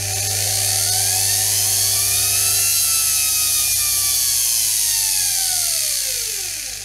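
Washing-machine universal motor running on 220 V through a lamp dimmer: its whine climbs as the dimmer is turned up, peaks about halfway, then falls as it is turned back down, with a bright hiss over it, and fades out at the end.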